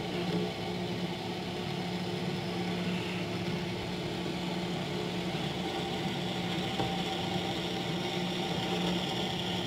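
Vertical band saw running while its blade cuts through aluminium stock: a steady motor hum with the even hiss of the cut.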